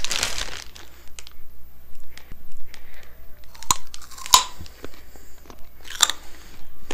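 Biting into and chewing raw baby carrots, with a few sharp crunches about three and a half, four and a half and six seconds in. A plastic bag crinkles briefly at the start.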